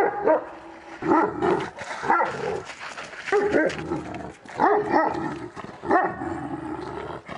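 Canine barking: loud barks about once a second, with shorter yelps in between, between a Kangal and wolves facing each other through a wooden fence.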